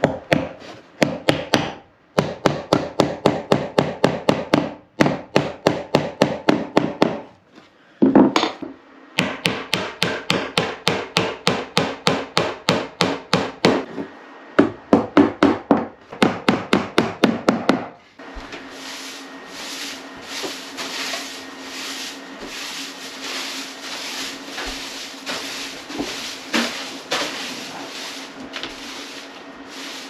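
Hammer blows on wood in quick runs, about four strikes a second, with short pauses between runs. About two thirds of the way through, the hammering gives way to steady rhythmic rasping strokes on wood, like a hand tool being worked back and forth.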